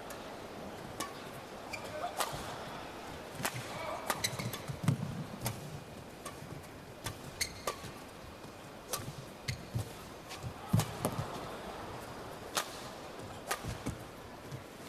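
Badminton rally: rackets strike the shuttlecock with sharp cracks about once a second, traded back and forth, with low thuds of players' footwork on the court.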